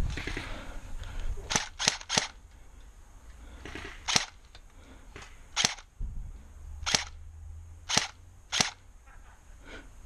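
Airsoft guns firing single shots: about eight sharp cracks at irregular intervals, three in quick succession about one and a half seconds in, then the rest spaced a second or more apart.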